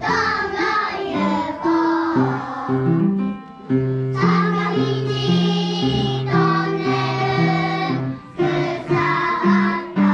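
A group of young children singing a song together, with piano accompaniment.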